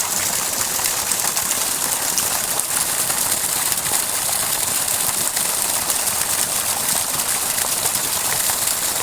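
Water gushing steadily from the outlet of a freshly repaired water pump motor, an even rushing hiss with no breaks.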